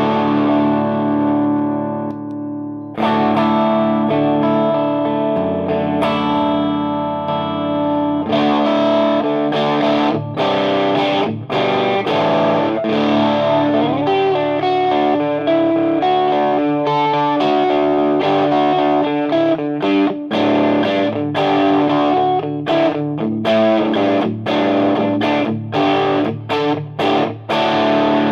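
Electric guitar played through a Frantone Hep Cat overdrive pedal into a clean amp, giving a driven, crunchy tone. Held chords ring for the first several seconds, then give way to faster picked riffs and short chord stabs with brief gaps near the end.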